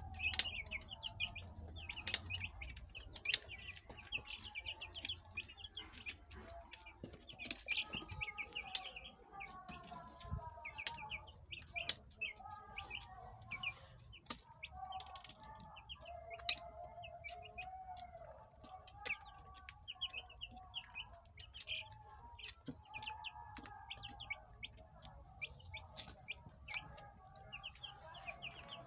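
A brood of broiler chicks about a week old peeping continuously: many short high cheeps overlapping, with some lower wavering calls from about a third of the way in and scattered light clicks.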